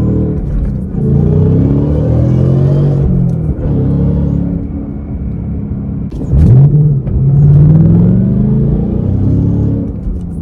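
Whipple-supercharged Mustang GT's 5.0-litre V8 revving and accelerating, its pitch climbing and dropping several times. About six seconds in there is a sudden loud rev that sweeps sharply upward.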